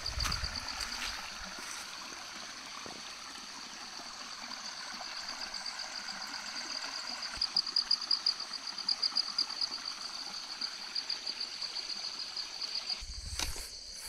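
Insects trilling steadily in a high, rapidly pulsing tone over a faint background hiss. Near the end a low rumbling noise comes in.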